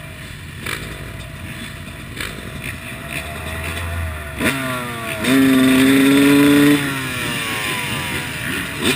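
Yamaha YZ250 single-cylinder two-stroke motocross engine under riding load. The revs fall, then sweep up sharply about halfway through and hold a loud, high note for about a second and a half before dropping back. The revs rise again near the end, with light knocks from the bike running underneath.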